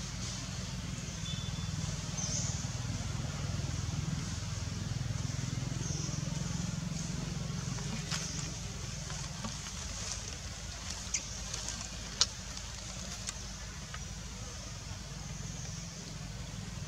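Outdoor background noise: a steady low rumble under a faint high hiss, with a few sharp clicks about two-thirds of the way through.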